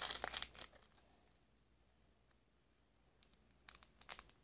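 Small plastic packet crinkling as it is handled, then a pause, then a few short, sharp scissor snips near the end as the packet is cut open.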